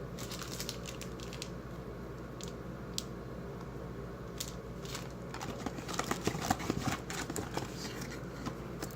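Trading cards and packaging being handled: scattered light clicks and rustles, busier from about five to eight seconds in, over a steady low hum.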